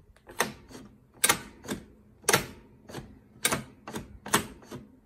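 Ball lift mechanism of a 1948 Bally Carnival pinball machine worked by hand, giving a sharp metal clack about once a second, each with a few lighter rattling clicks after it. The lift does not travel as far as it should.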